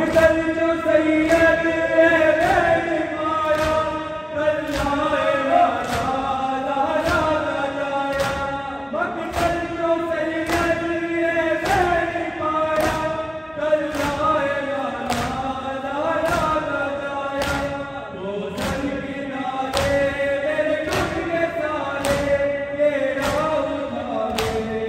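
Men chanting a Shia mourning lament (noha) while the congregation beats their chests in unison: a sung melody over a steady slap about once a second.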